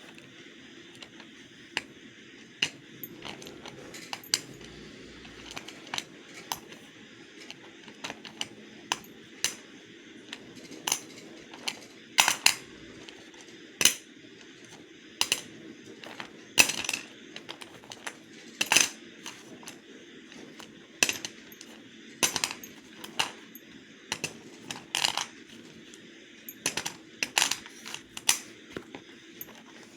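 Slate pencils making a run of sharp, hard clicks and snaps at irregular intervals, about one or two a second, over a faint steady hiss.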